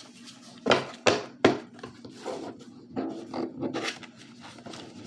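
Tarot cards being handled on a table: three sharp clacks close together about a second in, then softer taps and rustling.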